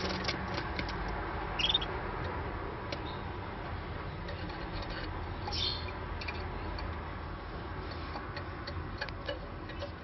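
Domestic canaries in a cage: scattered light ticks and taps, with two short high chirps, one nearly two seconds in and one just past the middle, over a steady low background hum.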